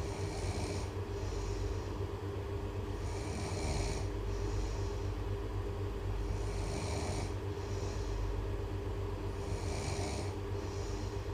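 Person snoring in a slow, regular rhythm, about one snore every three seconds, four in all. Each snore is a longer hissy breath followed by a shorter one, over a steady low hum.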